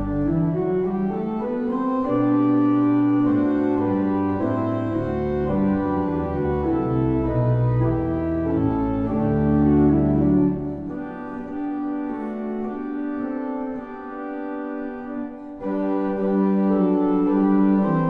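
Church organ playing a Christmas tune in sustained chords over a deep pedal bass. The bass drops out a little past halfway and comes back near the end.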